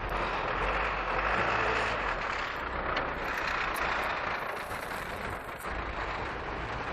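Steady road-vehicle noise with a low rumble, like a truck or bus passing on a city street.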